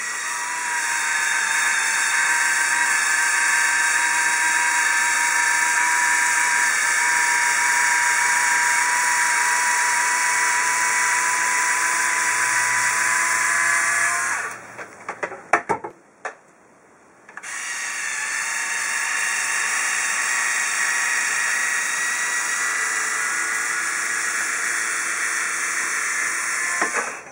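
Instyler rotating-barrel hair styler's motor running with a steady whine as the barrel spins through a section of hair. It runs for about fourteen seconds, stops with a few sharp clicks and a short pause, then runs again for about ten seconds.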